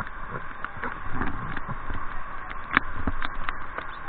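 Whitewater river rushing around a raft, with irregular splashes and knocks of water against the boat.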